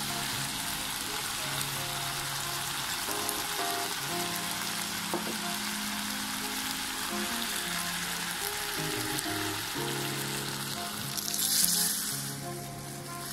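Pork belly and aromatics sizzling in a hot stainless saucepan over background music. Near the end water is poured into the hot pan with a brief, louder hiss, after which the sizzle dies down.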